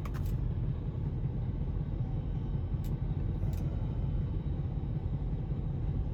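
Ford Expedition's 4.6-litre two-valve V8 idling with a steady low rumble, with a few faint clicks over it.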